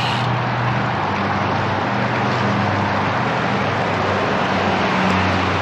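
Strong wind rushing over the bike-mounted camera's microphone, mixed with road-bike tyres running on rough chip-seal pavement: a steady, loud rushing noise with a low hum underneath.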